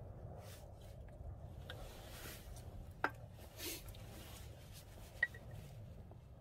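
Quiet handling of dishes and a plastic water bottle at a small table: short faint rustles, one sharp clink about three seconds in and a small tick near the end, over a low steady hum.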